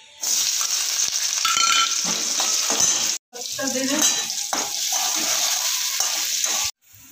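Hot oil sizzling in a steel kadhai as bay leaves and sliced onion fry, with a steel spatula stirring and clinking against the pan. The sizzle cuts out abruptly for a moment about three seconds in.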